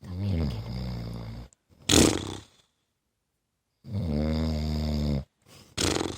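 A man snoring in his sleep: two long, pitched snores about four seconds apart, each followed by a short, louder puff of breath.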